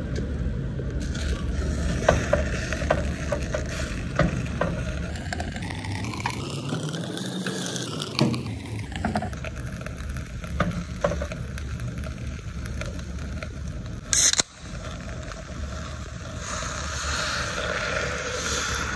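Ingredients and chicken being laid into a clay pot, with scattered knocks and clicks over a steady low rumble and one loud sharp knock about fourteen seconds in. Near the end, Coca-Cola is poured over the chicken, a steady hissing pour.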